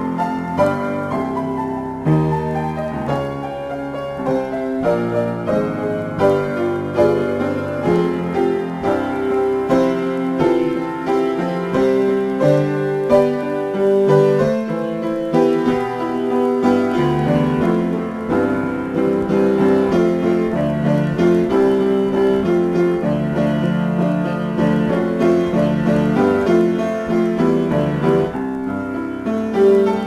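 Improvised piano playing: a continuous flow of notes and chords with no pauses.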